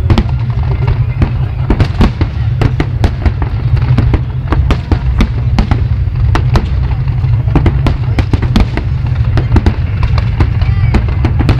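Fireworks display: a rapid, irregular series of sharp cracks and pops, several a second, over a continuous low rumble.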